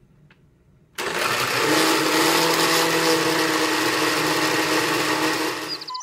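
Electric countertop blender switching on abruptly about a second in and running steadily on medium speed, its motor pitch rising briefly as it spins up, as it purées sliced carrots with eggs and oil into a smooth cream.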